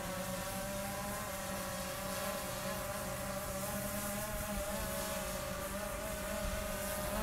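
Diesel locomotive running steadily out of sight in a railway tunnel: a low engine drone with a steady, slightly wavering whine above it.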